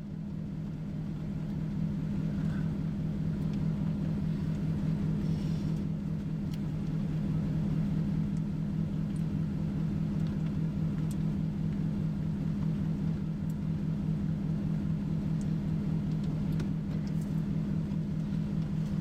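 A car driving: a steady low engine and road drone that builds over the first couple of seconds and then holds steady.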